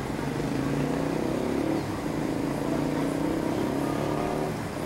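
Street traffic: a motor vehicle's engine running with a steady low hum, over a haze of background noise.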